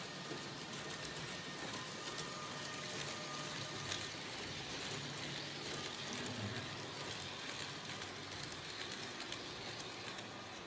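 Electric model train running along the layout's track: a steady mechanical whir with a dense patter of fine clicks.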